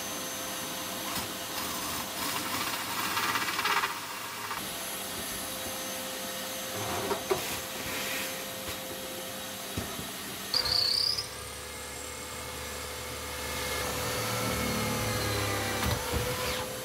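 Power drill with a hole saw cutting a drain hole through the fibreglass crash bulkhead, in several louder spells over a steady hum.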